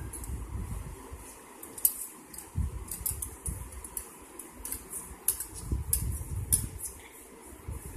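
A clothes iron being pushed and knocked about over a shirt, giving scattered light clicks and taps over a low, uneven rumble.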